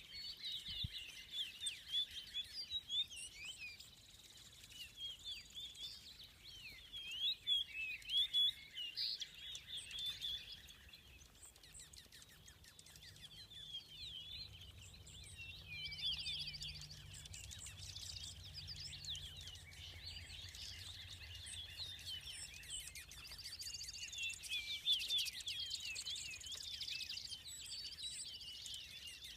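A mixed flock of small migrating songbirds, sparrows and juncos among them, chirping and singing all at once in a dense, unbroken chorus of short twittering calls. A faint low hum runs underneath through the middle stretch.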